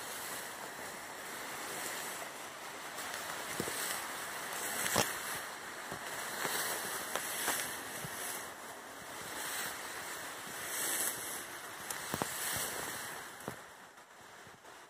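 Tall grass rustling and brushing as someone pushes through it on foot, a hiss that swells and fades with each stride, with a few sharp snaps of stems or twigs.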